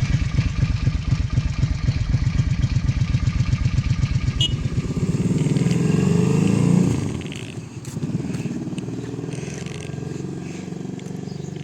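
Suzuki Intruder Volusia V-twin cruiser engine running with an even low pulse, then revving up with rising pitch from about five seconds in. The sound falls away sharply about seven seconds in and carries on quieter.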